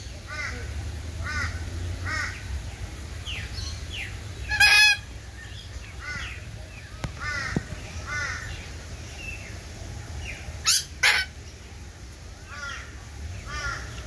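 Aviary birds calling: a string of short, arched chirps repeating, broken by loud harsh parrot calls, once about five seconds in and twice in quick succession near eleven seconds.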